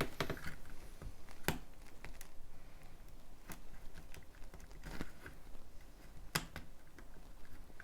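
Lego plastic parts clicking and tapping as they are handled, a scatter of separate sharp clicks with a louder one about six seconds in.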